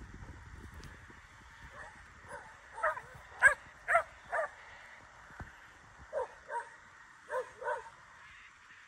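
Young working yard dog barking freely at sheep as it works them: about ten short, sharp barks, a quick run of six loudest a few seconds in, then two pairs near the end. It is the free bark wanted in a yard dog for moving stock.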